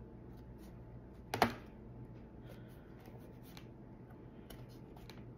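Light clicks and taps of glued wooden truck pieces being handled on a work surface, with one sharp knock about a second and a half in.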